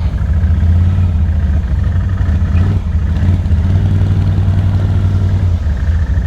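ATV engine running at a low, steady speed, its pitch nearly constant throughout.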